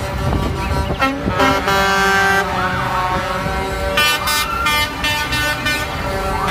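Air horns of several Mack concrete mixer trucks sounding together in long overlapping blasts, with truck engines running underneath.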